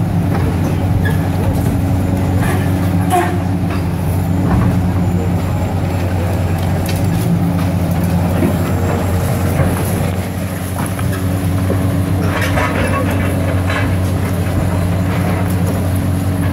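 Diesel engines of high-reach demolition excavators droning steadily, with intermittent crunches and clatter of brick and concrete breaking and falling as the jaws tear down a building; the breaking is thickest about twelve seconds in.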